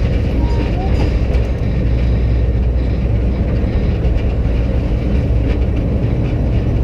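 Kiddie train ride car rolling along its track, a steady rumble and rattle heard from inside the car.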